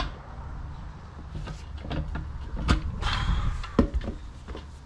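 A steel tyre iron levers a tractor tyre's bead over its steel rim. It gives several sharp clanks against the rim, and in the middle a stretch of rubber scraping with a brief squeak as the bead slides.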